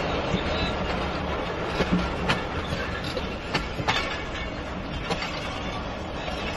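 Pakistan Railways passenger coaches rolling past close by, with a steady rumble of wheels on rail. Several sharp clicks are heard as the wheels cross rail joints.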